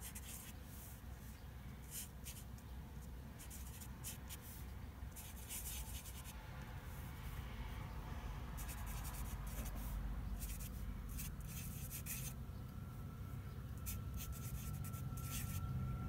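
A Sharpie permanent marker writing by hand on paper: short, irregular scratching strokes with brief pauses between letters and words. A low rumble underneath grows louder near the end, and a faint steady tone comes in over the last few seconds.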